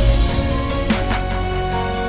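Electronic background music with sustained synth chords, a deep bass hit at the start and sharp drum hits about a second in and near the end.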